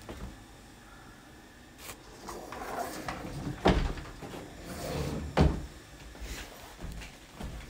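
Closet door being handled and shut, with two sharp knocks about a second and a half apart and rustling between them.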